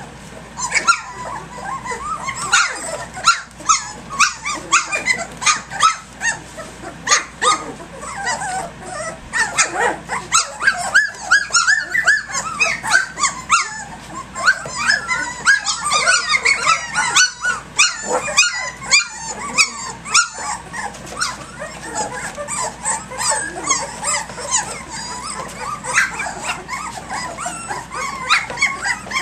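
A litter of three-week-old Doberman puppies play-fighting: a busy, overlapping stream of small growls, yips and squeaky whimpers, with frequent sharp clicks and scrabbling.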